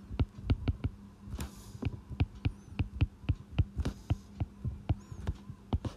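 Stylus tip tapping and clicking on a tablet's glass screen during handwriting: quick, uneven taps, several a second, over a steady low hum.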